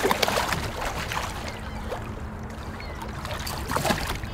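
Hooked brown trout splashing at the surface beside a fishing kayak as it is brought in, with a few sharp knocks near the end as it is lifted aboard.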